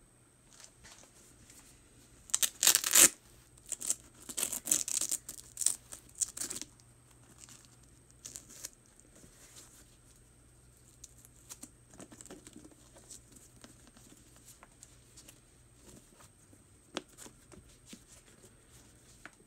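Velcro straps on an Air Jordan 8 sneaker being pulled open in tearing rips, loudest about two to three seconds in and again from about four to six and a half seconds, followed by softer rustling as the shoe is handled.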